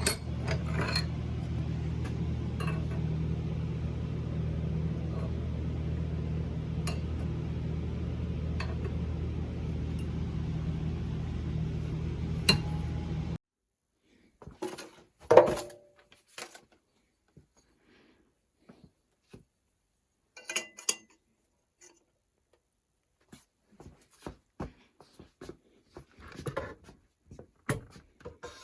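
A steady machine hum with occasional clicks that cuts off abruptly about halfway, followed by scattered light metal clinks and knocks of tools or workpieces being handled.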